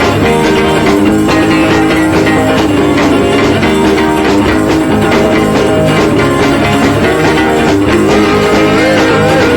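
Loud background music led by guitar, with a steady beat.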